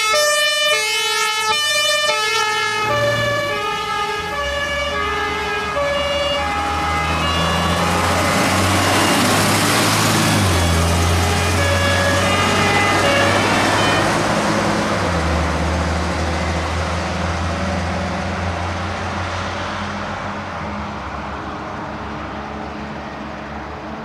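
German fire engine's compressed-air two-tone horn (Martinhorn) sounding its alternating high-low call, fading out over the first few seconds. The truck's diesel engine and tyres then grow loud as it drives past, the engine note stepping up and down, and die away near the end.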